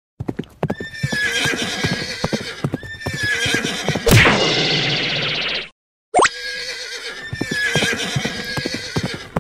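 Horse sound effects: a neigh over clip-clopping hoofbeats, the same pattern repeating three times. A louder, longer burst comes about four seconds in, and a sharp rising sound follows just after six seconds.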